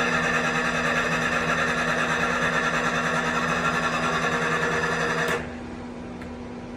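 OKK machine tool running with an abnormal noise: a steady mechanical whine made of several steady tones. About five seconds in, it cuts down suddenly to a quieter hum.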